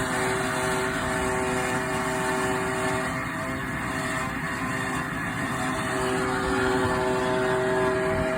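LPG boiler running with a steady rushing roar and a droning hum of several steady pitches on top. It is an abnormal running noise that the owner treats as a fault.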